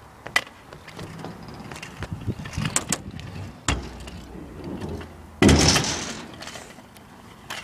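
Stunt scooter knocking and rolling on a skate park ramp: scattered clicks, a thud about three and a half seconds in, and a louder rumbling thud about five and a half seconds in.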